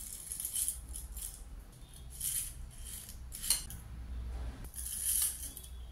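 Dry cornflakes rustling and crackling as they are tipped off a metal spoon into glass mugs, in a few short bursts, with one sharp click about three and a half seconds in.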